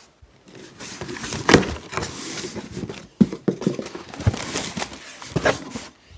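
Packaging being handled while a headset box is unpacked: rustling with irregular knocks and clicks, the sharpest knock about a second and a half in.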